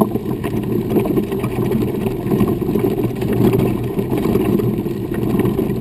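Steady rumble and rattle of wheelchair wheels rolling over a dirt trail, picked up close by a camera riding along on the moving chair.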